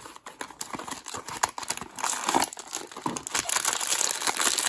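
Light clicks and rustles of a small cardboard blind box being opened, then the foil pouch from inside crinkling as it is handled, the crackle growing denser and louder over the last couple of seconds.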